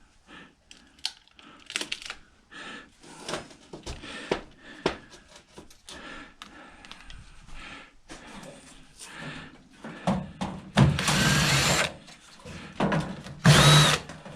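A power drill with a 1/4-inch driver backing screws out of an old microwave's sheet-metal case. Scattered clicks and knocks of metal parts being handled, then two runs of the drill, each about a second long, in the last few seconds.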